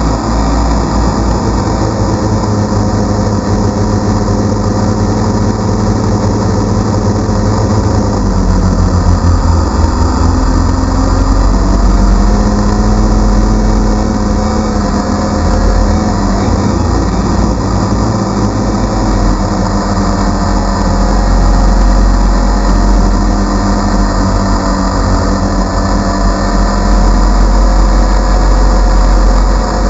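DJI Phantom quadcopter's electric motors and propellers buzzing steadily, heard from a GoPro mounted on the drone itself, the pitch shifting slightly now and then as it manoeuvres.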